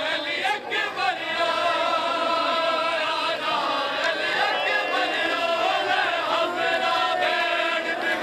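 A crowd of mourning men chanting together, many voices overlapping in a steady, sung chant.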